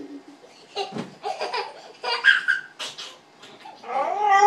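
Toddler laughing in short bursts while being swung around. Near the end a dog starts a long, wavering howl.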